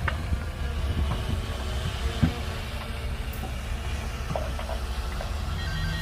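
Shantui DH17C2 bulldozer's diesel engine running steadily, with a few sharp knocks and clanks from the machine at work, the loudest about two seconds in.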